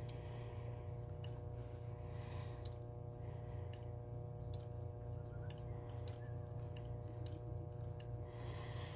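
About ten sharp, small metallic clicks at irregular intervals as a Western Electric 5H rotary dial mechanism is handled and turned over in the hands, over a steady low hum.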